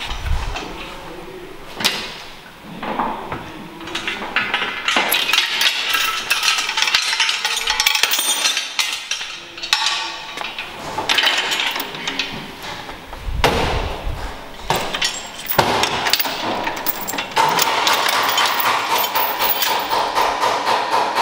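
Metal clanking and knocking from a steel pulling chain and clamps being handled on a frame-straightening bench, with repeated sharp clinks and a busy run of clatter through the middle.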